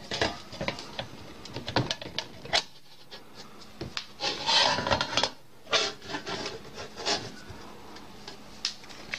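A black metal baking tray being fitted upside down over another tray as a lid: scattered clicks and rubbing scrapes of metal on metal, with the loudest, longest scrape about four to five seconds in.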